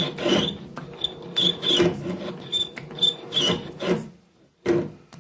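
Lathe cutting tool scraping into a cast iron pulley as the chuck is turned by hand: a quick, uneven run of rasping scrapes with a high squeal, pausing briefly about four seconds in.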